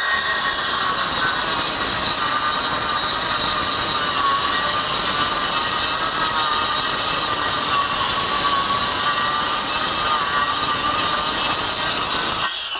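Kobalt 24-volt 6-1/2-inch cordless circular saw with its stock 24-tooth blade cutting through two stacked half-inch OSB sheets on a 4 amp-hour extended run battery. A loud steady motor whine, wavering slightly in pitch under load, runs over the rasp of the blade in the board. It stops near the end as the cut finishes.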